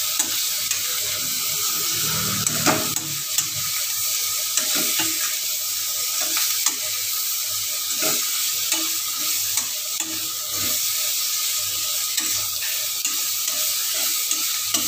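A spoon stirring and scraping carrot and green bean pieces in a metal wok, with scattered clinks against the pan, over a steady hiss of the vegetables sizzling in oil.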